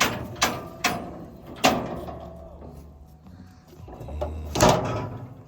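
Metal livestock-handling gear clanking: a few sharp knocks in the first two seconds, then a louder bang near the end.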